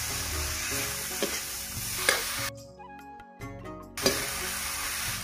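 Ridge gourd pieces sizzling in hot oil and masala in a kadhai while a metal spatula stirs them, scraping and knocking against the pan a few times. The sizzle cuts out for about a second and a half midway, then resumes.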